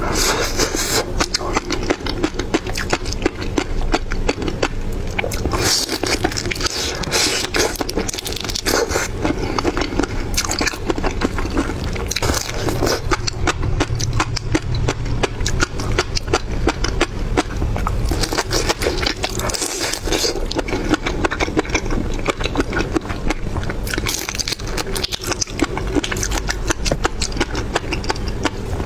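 Close-miked mouth sounds of raw shrimp topped with fish roe being bitten and chewed: dense wet crackling and many small clicks and pops, in several louder clusters as fresh bites are taken.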